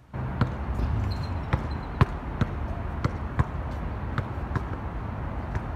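A basketball bouncing on an outdoor hard court as a player dribbles: sharp bounces about twice a second over a steady low background rumble.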